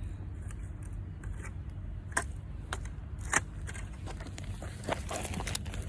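Twigs being snapped and fed into a small, just-lit fire: scattered sharp clicks and snaps at irregular intervals over a low steady rumble.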